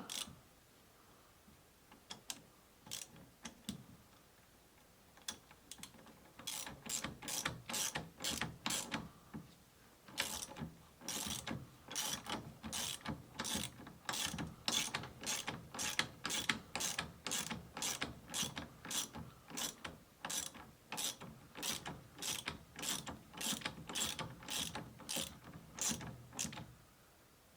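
Ratchet wrench clicking in quick back-and-forth strokes, about two a second, as it cranks down the nut holding a Jeep CJ7 steering wheel onto the steering shaft. The strokes start sparse, pause briefly, then run on steadily until shortly before the end.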